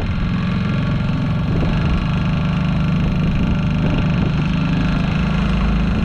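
Honda four-stroke outboard motor running steadily with the boat under way, over the rush of water and wind.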